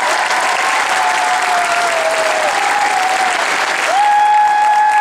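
Audience applauding steadily, with long high-pitched tones held over the clapping; one sinks slowly in pitch through the first half, and another starts about four seconds in and holds steady for over a second.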